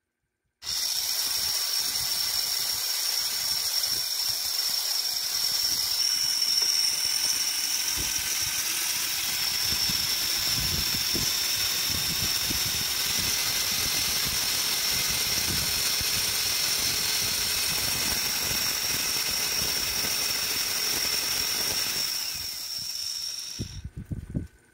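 A repaired 775 12 V brushed DC motor running at high speed on a bench power supply, giving a steady high-pitched whine with brush hiss. It starts abruptly a moment in, dies away near the end and stops, followed by a couple of light knocks of handling.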